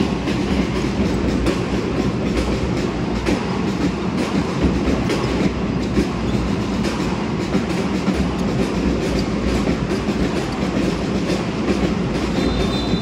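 Indoor basketball game ambience: a steady din of arena crowd noise with frequent short knocks from the play on the court, such as the ball bouncing on the hardwood.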